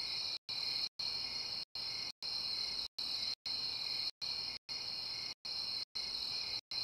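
Crickets chirping in a steady high chorus, broken by brief dropouts to silence every half second or so.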